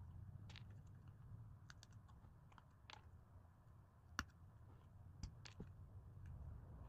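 Faint, scattered clicks and taps of stiff card 3D-puzzle pieces being handled, folded and slotted together, about seven in all, the sharpest about four seconds in, over a low steady hum.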